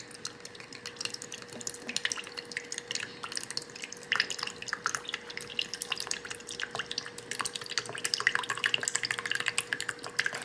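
Dark soy sauce being poured for measuring, a liquid trickle with many small irregular drips and splashes that grow busier in the second half.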